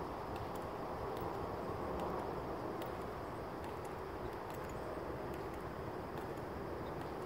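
Steady outdoor background rush from a silent, waiting crowd, with faint, irregularly scattered ticks.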